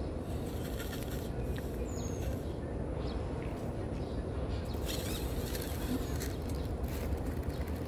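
Steady low outdoor background rumble, with a few faint, brief bird chirps above it.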